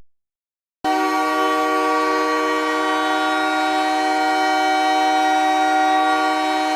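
NHL arena goal horn sounding one long, unbroken blast, starting about a second in after a brief silence and holding steady at one pitch.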